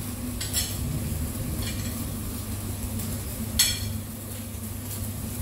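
Metal fork clinking and scraping on a ceramic plate of chicken döner, a few light clinks and one sharp, louder clink about three and a half seconds in, over a steady low hum.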